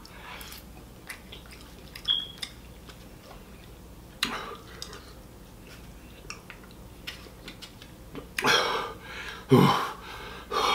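Metal fork clicking and scraping against a small bowl of collard greens, with faint chewing. Near the end, two loud breathy exhalations about a second apart.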